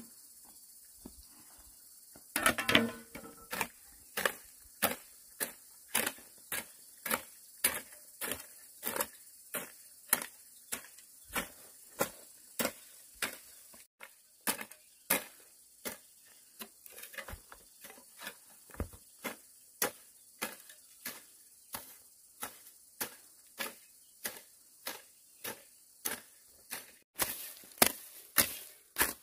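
Bamboo being struck over and over with a hand tool: sharp, evenly spaced knocks, a little under two a second, starting about two seconds in.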